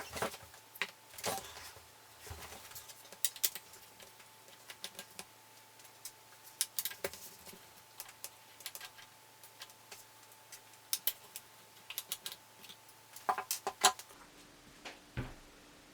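Scattered small clicks and taps from a speaker tweeter being taken apart by hand, as its diaphragm with the voice coil is worked free. A quick run of clicks comes near the end.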